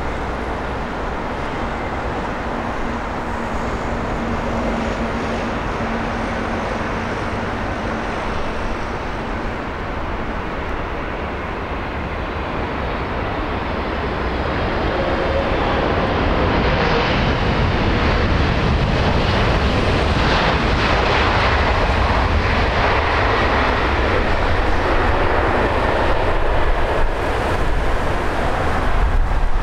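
Jet engines of a twin-engine widebody airliner landing and rolling out on the runway: a steady loud rush that grows louder about halfway through and stays loud.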